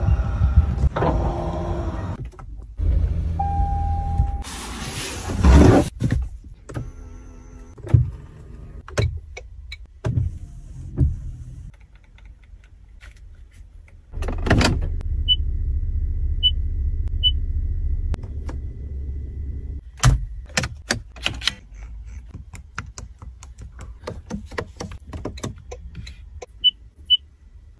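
Toyota Tundra pickup's powered features being worked: electric motors running in stretches, sharp switch clicks, and short high electronic beeps from the dash, three in quick succession and later two more.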